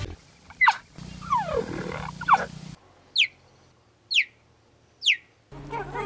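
Cheetah chirping: short, high, bird-like chirps that each fall sharply in pitch. There are a few irregular chirps at first, then three clean ones about a second apart.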